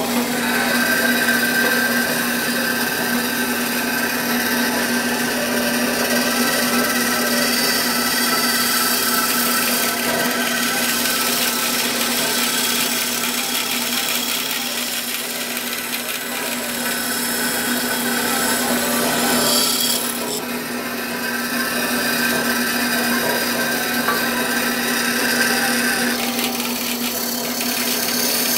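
Bandsaw running and cutting wood: a steady motor hum under a rasping cutting sound that changes character about two-thirds of the way through and again near the end.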